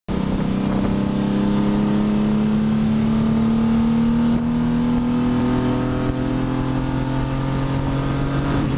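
Pontiac Fiero race car's engine heard from inside the stripped cabin, pulling under load with its pitch climbing slowly, then dipping near the end.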